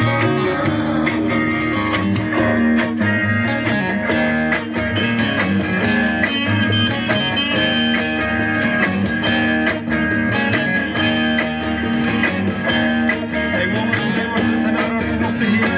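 Guitar music with a steady beat.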